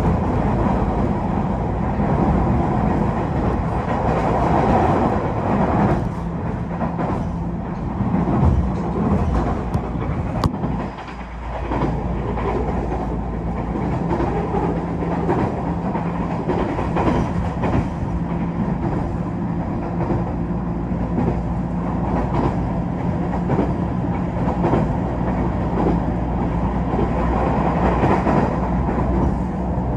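A JR Kyushu KiHa 47-type diesel railcar running at speed, heard from inside the cabin. The diesel engine drones steadily while the wheels click over rail joints.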